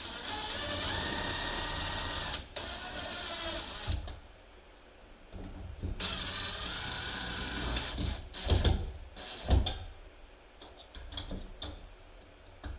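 Cordless drill-driver running in short bursts to drive the screws of a shower valve trim plate, its motor whining steadily, followed by a few sharp knocks and clicks.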